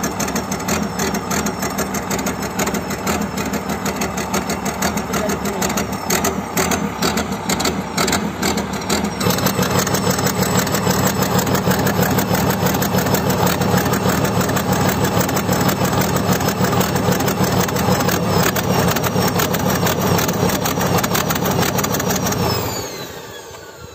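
Komatsu excavator's diesel engine running, getting louder about nine seconds in as it picks up revs, then dropping off sharply near the end with a falling whine.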